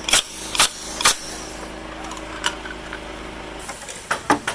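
Carpentry hammering: three sharp strikes about half a second apart, then three quicker ones near the end, over a steady hum that stops about three and a half seconds in.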